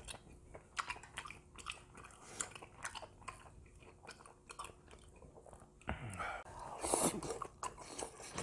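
Close-miked chewing and biting of grilled beef intestines and kimchi: many short mouth sounds in quick succession. About six seconds in comes a louder, noisier stretch lasting about a second and a half.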